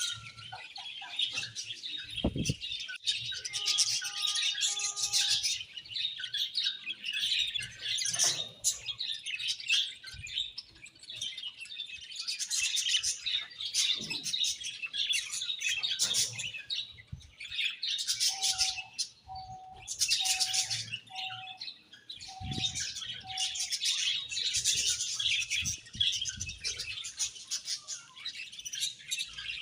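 A colony of budgerigars chirping and warbling non-stop, many birds at once in a dense, busy chatter.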